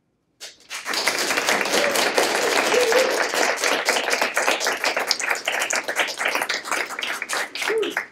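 Audience applauding, a dense patter of many hands clapping, with a voice or two calling out briefly among it. It starts about half a second in and stops abruptly near the end.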